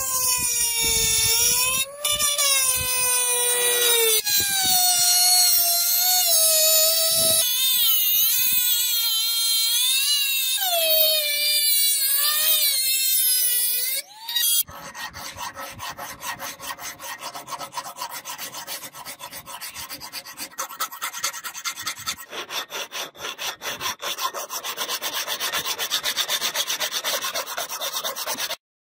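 A handheld rotary tool grinds the edge of a steel sword blade with a high whine whose pitch wavers and dips under load. About halfway through it gives way to fast, even strokes of a hand file rasping across the steel, which cut off suddenly near the end.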